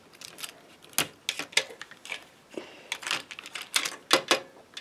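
Irregular clicks and taps of small plastic toy pieces being handled and knocked against a hard tabletop.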